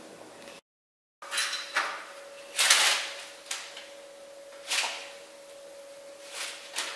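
Kitchen handling noises: a series of short knocks and rustles, about seven in all, the loudest a little under halfway through, over a faint steady hum. The sound drops out completely for about half a second near the start.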